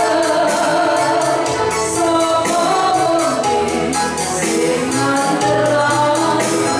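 A woman singing a Javanese-language gospel song into a microphone, over backing music with a steady percussion beat and bass.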